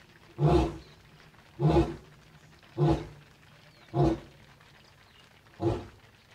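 Lion roaring: the closing run of a roaring bout, five short deep grunts a little over a second apart, with the gaps slowly widening.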